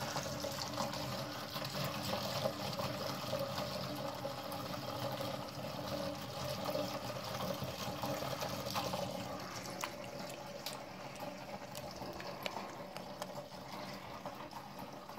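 Cooled beer wort running from a plastic drain hose into a stainless steel fermenter: a steady trickle of liquid filling the vessel, with a few small clicks.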